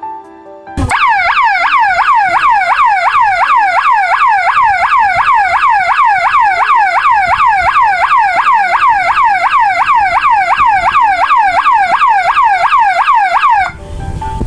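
A 12-volt horn-speaker alarm siren sounds a fast falling yelp, about two sweeps a second, set off when the dual-beam sensor's beam is broken. It starts suddenly about a second in and cuts off shortly before the end.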